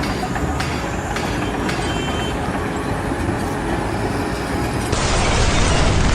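Steady, loud mechanical rumble, like heavy vehicle or rail machinery, with scattered sharp clicks and knocks. About five seconds in it changes abruptly to a louder, hiss-like noise.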